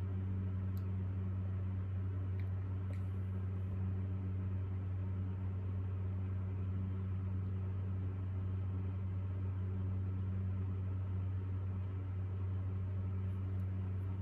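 Steady low hum of room background noise, unchanging throughout, with a couple of faint light ticks in the first few seconds.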